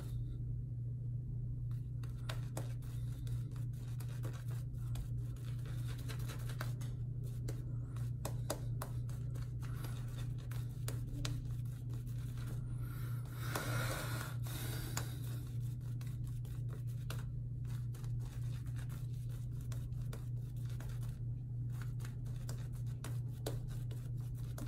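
Boar-bristle shaving brush working soap lather over the face: many short, scratchy wet brushing strokes, with a louder stretch of brushing about halfway through. A steady low hum runs underneath.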